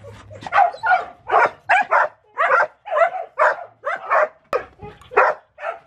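Dogs in a wooden-and-wire kennel giving a rapid run of short barks, about two to three a second, while being fed pieces of food through the slats.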